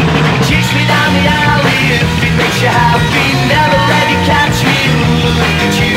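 A late-1960s rock record playing from a mono 45 rpm single: a full band with a steady beat.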